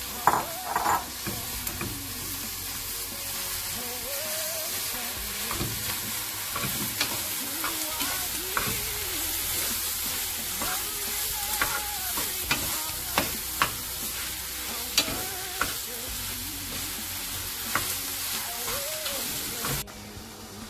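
Minced beef frying with onions in a pot, sizzling steadily while a wooden spatula stirs and breaks it up, with scattered clicks and scrapes of the spatula against the pot. The sound drops suddenly near the end.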